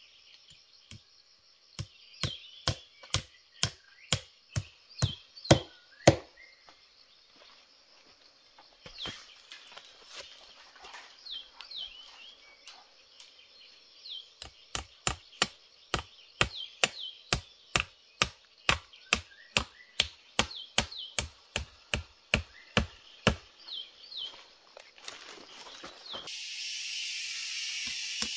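Repeated chopping blows at about two a second, in two runs with a pause of a few seconds between. Small birds chirp in the background.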